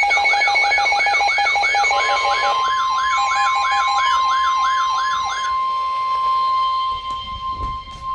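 Electronic emergency alert tones for a tornado warning: a fast warbling siren-like sweep, about three rises a second, layered with steady beeping tones. About two seconds in, a single steady high tone comes in and holds after the sweep stops, typical of the weather radio warning alarm tone. A few low knocks come near the end.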